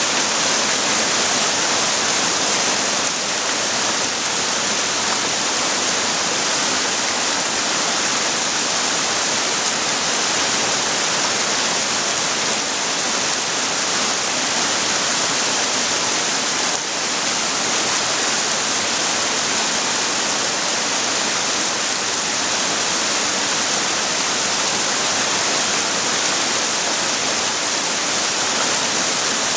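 Waterfall plunging into a mountain river, a steady loud rush of falling water.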